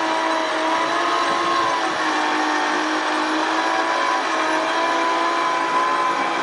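Toyota truck's front-mounted winch running under load, pulling an IH tractor in on its cable. It makes a steady whine whose pitch sways slightly up and down.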